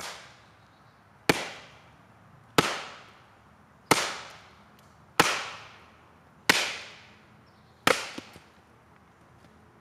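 Aranyik cane machete, a heavy 5160 steel blade, chopping into a standing log: seven sharp chops at an even pace, about 1.3 seconds apart, each dying away over about half a second.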